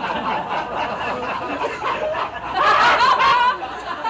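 People laughing, with short chuckling bursts that grow louder a little past halfway.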